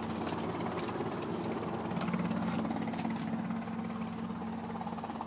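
A helicopter running in the background gives a steady, even drone, with a few faint clicks scattered over it.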